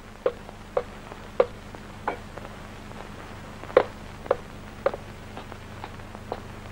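Footsteps coming down stairs: short knocks about half a second apart, a brief pause, then three louder steps, over a steady low hum.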